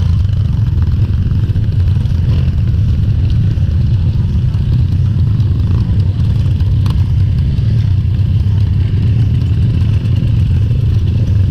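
Trail motorcycle engine running steadily with a loud low rumble.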